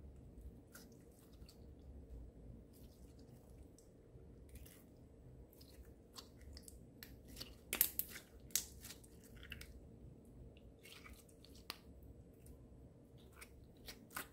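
Clear slime full of glitter and sequins being squeezed and stretched by hand, giving faint wet clicks and crackles, with two louder pops about eight seconds in.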